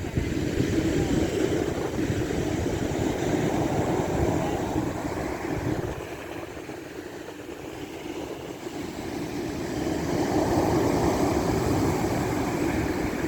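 Wind buffeting the microphone over the rush of sea waves, swelling, easing off about halfway through, then building again.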